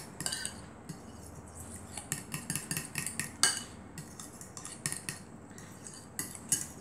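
A fork beating eggs and grated Parmesan in a glass bowl, its tines clicking quickly and unevenly against the glass, with a few brief lulls and one sharper clink about three and a half seconds in.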